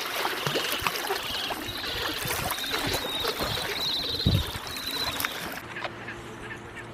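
Shallow seawater lapping and splashing at a pebble shoreline as gentoo penguins wade out of it. A thin, high, wavering chirping runs through the middle, with a low thump about four seconds in. The sound drops quieter near the end.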